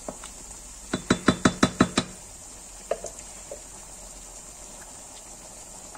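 A cooking spoon rapped against the rim of a stainless steel pot, about seven quick sharp knocks in a second, then one or two lighter single knocks.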